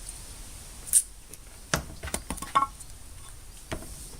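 A handful of short, sharp clicks and taps, the loudest about a second in, from handling tape and parts while masking a vise for paint.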